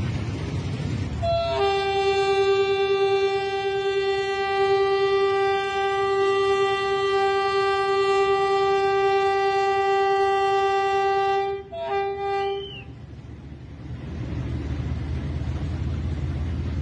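Diesel locomotive's horn sounding one long, steady, single-pitched blast of about ten seconds, ending in a few short broken toots, as a warning to traffic at a level crossing. A low rumble of the train is heard before and after the blast.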